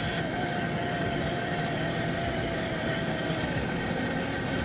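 A steady engine drone whose main tone slowly falls in pitch.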